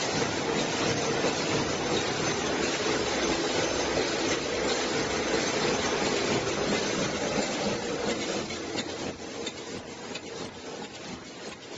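Pocket spring mattress production machinery running: a steady mechanical whir with a fast, dense clatter, growing quieter about three-quarters of the way through.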